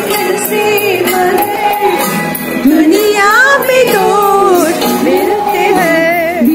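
Background music: a song with a sung melody that bends and glides between notes over a steady beat.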